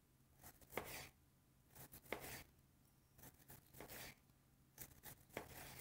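Kitchen knife slicing through a head of cabbage on a wooden cutting board: a few faint, separate cuts spaced about a second apart.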